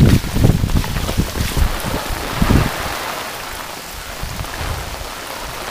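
Heavy tropical-storm rain falling in a steady hiss, with uneven low rumbles during the first half.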